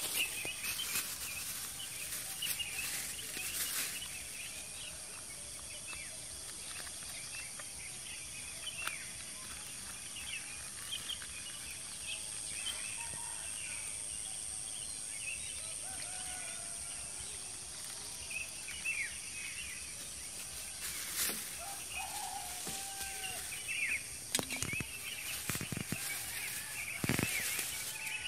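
Rural outdoor ambience of many small birds chirping over a steady high-pitched insect drone, with scattered clicks and knocks from food and containers being handled.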